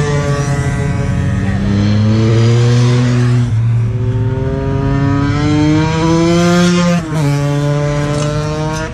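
Sport motorcycle engine under hard acceleration on a race track, its pitch climbing steadily and dropping sharply at each quick upshift, twice in the middle and once near the end.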